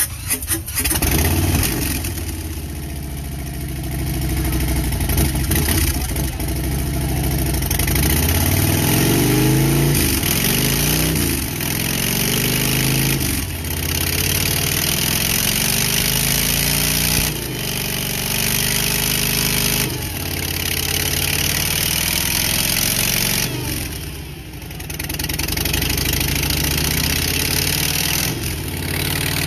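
A 2018 Harley-Davidson Heritage Softail's Milwaukee-Eight 107 V-twin engine starts about a second in, then runs with its engine speed rising and falling several times, with a brief dip near the end, as it is run through its gears.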